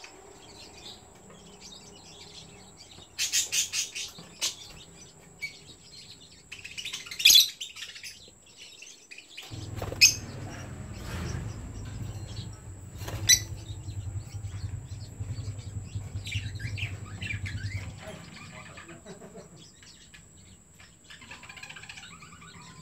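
Pet lovebirds chirping in short bursts, with a rapid run of chirps about three seconds in and loud high calls a few seconds later, plus a few sharp clicks. A low steady hum runs through the middle, and a faint high whine runs throughout.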